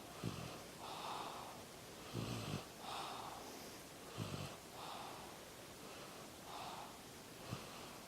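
Soft, snuffly breathing of a small sleeper, one breath about every two seconds, with four short, low snorts in between.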